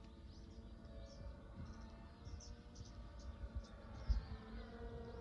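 Distant radio-controlled aerobatic airplane, a QQ Cap 232EX, its motor and propeller giving a steady hum that drifts slightly in pitch. Wind rumbles on the microphone, with one sharp gust about four seconds in, and short high chirps are scattered throughout.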